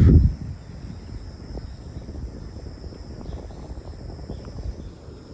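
Insects trilling steadily at a high pitch over a faint low outdoor rumble.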